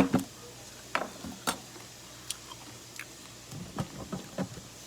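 Someone eating spicy papaya salad: irregular wet clicks and smacks of chewing and lips, about eight short sounds spread unevenly through the stretch.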